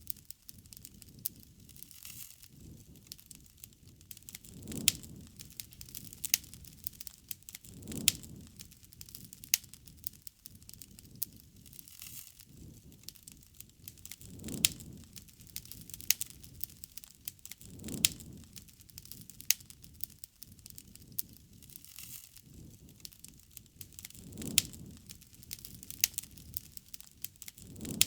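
Wood fire crackling, with frequent sharp snaps and pops and a low rush that swells every three seconds or so.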